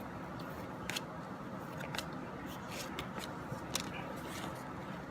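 Trading cards being handled and flipped through: faint rustling with scattered light clicks as cards slide and tap against each other.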